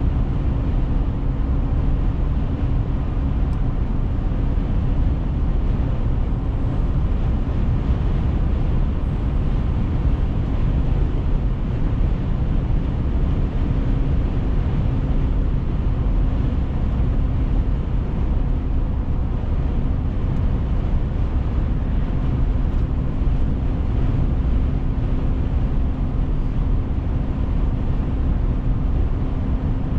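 Car interior road noise while driving: a steady low drone of tyres and engine, with a faint constant hum underneath.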